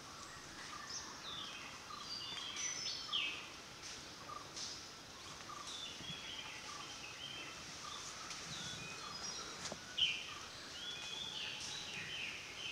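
Forest birds calling: many short, quick, falling chirps from several birds over a soft background hiss, with a lower repeated note about twice a second during the first few seconds.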